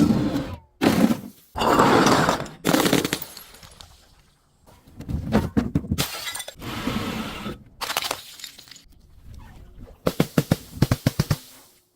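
Glass breaking and crunching in a series of separate bursts, each a second or so long, ending in a quick run of sharp cracks.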